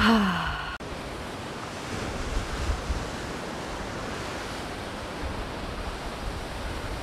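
Surf washing onto the rocks below a sea cliff, a steady rushing noise, with wind gusting over the microphone. A brief falling voice sound at the very start cuts off abruptly.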